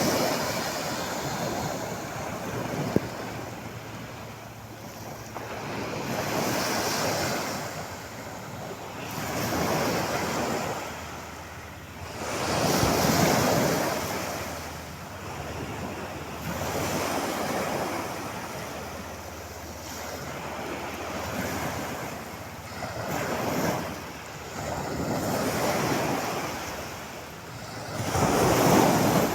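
Sea waves breaking on the shore, the wash swelling and falling back about every three seconds.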